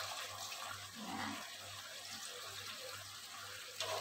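Coconut cream being poured from a bowl into a pot of simmering vegetables: a soft, steady pouring of liquid. There is a short knock near the end.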